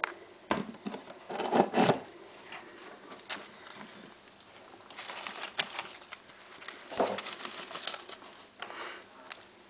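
Handling noise in a rat cage: a plate being put in and set down on shredded-newspaper bedding. It comes as scattered knocks and bursts of rustling, loudest about one and a half to two seconds in, with more around five and seven seconds.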